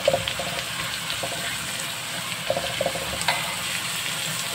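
Ground pork frying in a wok with a steady sizzle as the water it releases cooks off. A metal spatula clicks lightly against the wok a few times.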